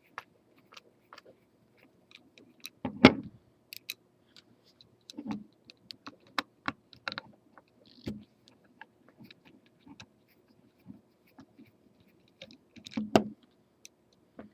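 Irregular sharp clicks and small knocks of a screwdriver and small metal parts as screws are taken out of the mounting bracket on an Ioline SmarTrac sign-cutter carriage, with a few louder clunks.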